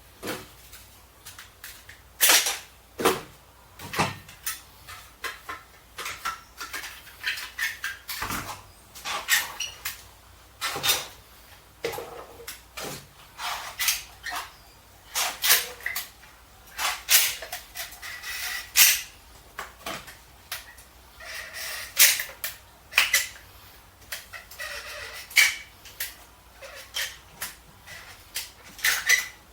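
Irregular knocks, clicks and clatters of hand work, several a second at times, with short scraping sounds in between.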